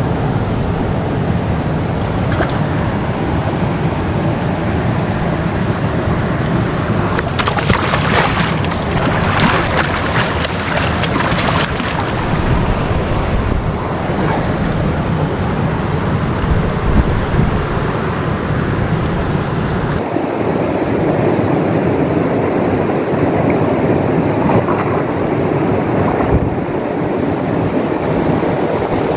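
Wind buffeting an action-camera microphone, a steady rumbling noise, with a louder hissing, rushing stretch for a few seconds about a third of the way in; the noise changes character abruptly about two-thirds through.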